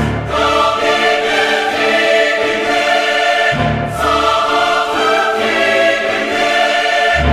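Background music of sustained choir-like chords, with a deep bass note coming in three times, roughly every three and a half seconds.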